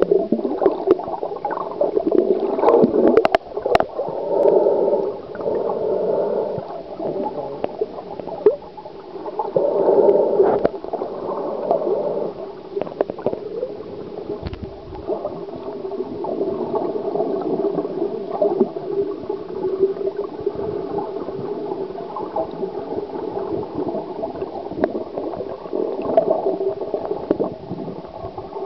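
Muffled underwater gurgling and sloshing of seawater picked up by a waterproof camera's microphone held below the surface, with a few sharp clicks about three to four seconds in. It surges unevenly at first and then settles into a steadier wash.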